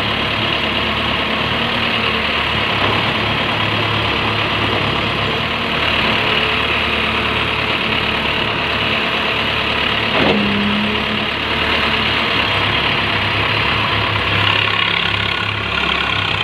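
JCB backhoe loader's diesel engine idling steadily, with a single sharp knock about ten seconds in.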